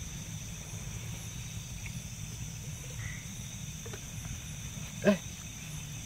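Crickets trilling steadily in one unbroken high tone, over a low rumble. About five seconds in comes one short, loud sound.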